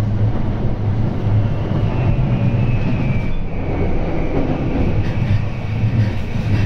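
Running noise heard inside a JR East E235 series electric train car moving along the line: a steady low rumble of wheels on rails, with a faint high tone that falls slightly around the middle.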